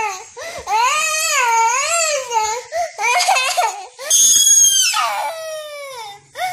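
Young girl crying loudly in several long, wavering wails. About four seconds in, a shriller, higher wail slides down in pitch.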